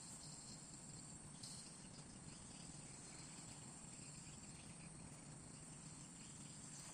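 Near silence, with a faint, steady, high-pitched chorus of insects such as crickets.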